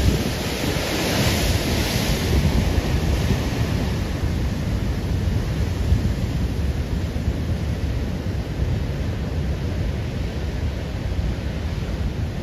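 Heavy surf breaking and wind buffeting the microphone, a steady low rumble throughout. A wave breaks with a hissing rush in the first few seconds, then it settles to even wind and sea noise.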